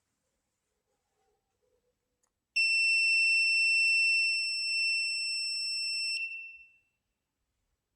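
Buzzer of an Arduino gas-leak alarm sounding one steady, high-pitched continuous tone for about three and a half seconds, starting suddenly a little over two seconds in and then cutting off: the alarm signal that gas above the set level has been detected.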